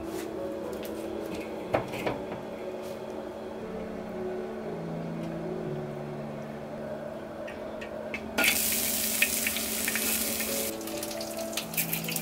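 Food sizzling in hot oil in an iron wok: a loud sizzle starts suddenly about eight seconds in and eases after about two seconds, with clicks of a metal spatula against the wok. Soft background music plays throughout.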